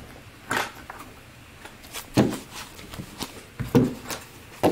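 Trading cards in plastic toploaders being gathered up on a desk: a few separate knocks and clacks, about four in all.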